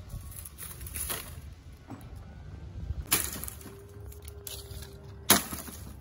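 Dry branches and twigs rustling and cracking as they are handled and dropped onto a pile of brushwood, with three sharper crunches, the loudest about five seconds in.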